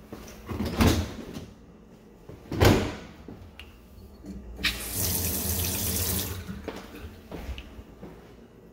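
Kitchen pull-out faucet turned on briefly, water running into a stainless steel sink for about a second and a half, then shut off. Before it come two short knocks.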